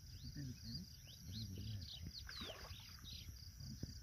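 Night insects chirping in a steady, evenly pulsed high trill, with several short sliding chirps over it.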